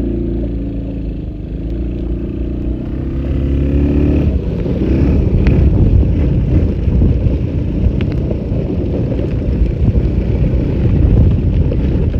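ATV engine running with a steady note, turning into a rougher, noisier low rumble about four seconds in.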